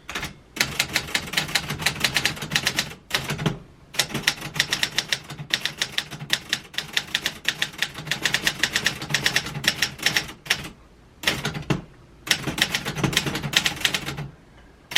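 Manual typewriter being typed on: quick runs of key strikes clacking against the platen, broken by a few short pauses.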